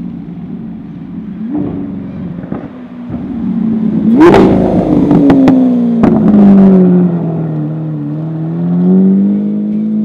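Lamborghini Aventador SV's V12 engine driving by. About four seconds in there is a sharp rev blip followed by a few sharp cracks, then the engine pitch falls away over several seconds and climbs again near the end.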